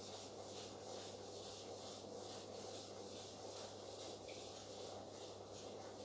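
Whiteboard eraser rubbing back and forth across the whiteboard's surface in quick repeated strokes, about two to three a second. The sound is faint.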